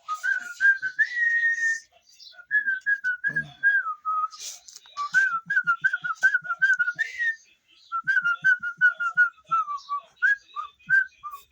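A person whistling a quick tune in short, bouncing notes, in several phrases with brief pauses for breath.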